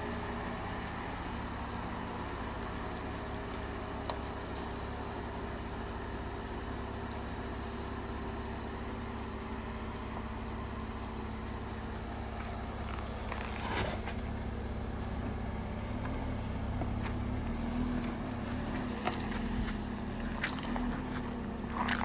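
Jeep Comanche pickup's engine running low and steady as it crawls off-road. It gets a little louder about two-thirds of the way in, with a few scattered knocks.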